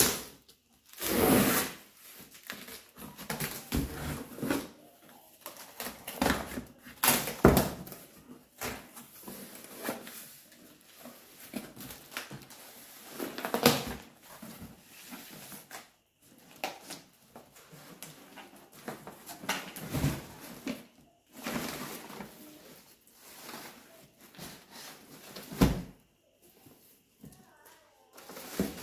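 Cardboard shipping box being opened by hand: packing tape pulled off, and the cardboard flaps and packing inside handled and rustled, in irregular noisy bursts with quieter gaps between.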